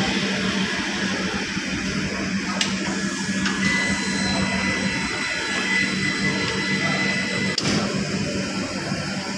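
Sectional warping machine running as its drum winds yarn: a steady mechanical hum with a low steady tone, and a sharp click twice.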